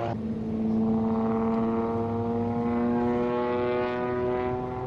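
Propeller aircraft engine droning steadily in flight, its pitch sagging slightly and then recovering.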